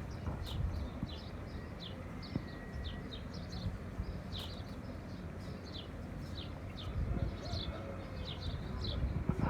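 Many young birds peeping: a steady stream of short, high, falling chirps, several a second, over a low rumble.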